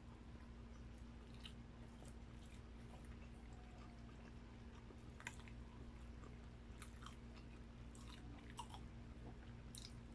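Faint close-miked chewing of barbecued meat and rice: soft wet mouth clicks and smacks at irregular intervals over a low steady hum.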